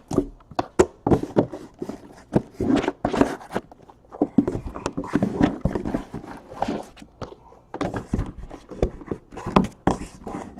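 Trading-card boxes being handled on a table: a run of irregular taps, knocks and rustles as they are picked up, moved and set down.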